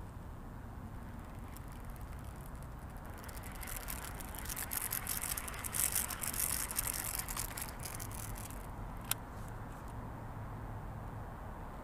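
Close handling noise of a frog lure and baitcasting rod and reel being fiddled with right by the microphone: rustling and small clicks, loudest about halfway through, with one sharp click about nine seconds in.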